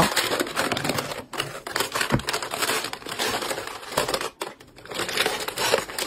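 Plastic makeup compacts, palettes and jars clattering and rattling against one another and a wire-mesh basket as they are tipped out onto carpet, with a short lull about four and a half seconds in.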